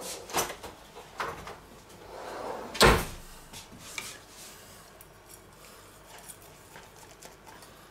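A few knocks and clicks of kitchen utensils being taken up, with one loud knock about three seconds in, then faint scraping of a carving knife and fork cutting into a roast duck on a wooden board.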